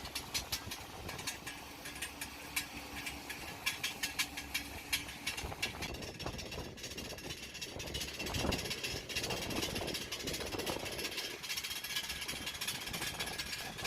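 Airliner jet engines making a rapid, regular clicking, about four or five clicks a second, which the passenger calls unusual but takes to be normal. After about five seconds the clicks grow fainter under a steady rushing noise.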